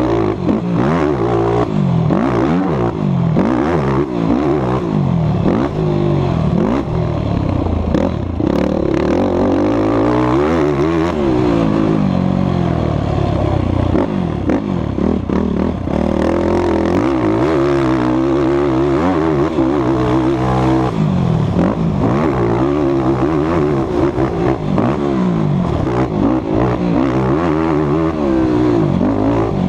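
Yamaha race quad's engine, heard from the rider's helmet camera, revving hard and backing off again and again around a motocross track, its pitch climbing and dropping every second or two.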